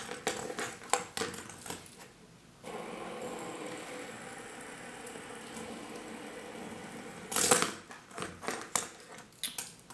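Fidget spinners clicking against each other as they are handled and stacked, then a spinner whirring steadily on its bearing for about four seconds, ending in a loud clatter and a few more clicks.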